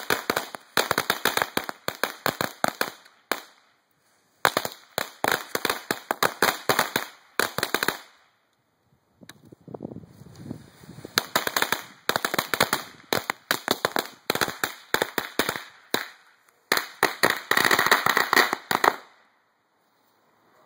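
Cutting Edge ladyfingers firecrackers going off in rapid strings of sharp pops. The pops come in several bursts with short pauses between them and stop shortly before the end.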